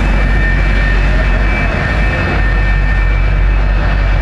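Jet engine of a jet-powered school bus running steadily, a loud rush of noise and low rumble with a constant high-pitched turbine whine.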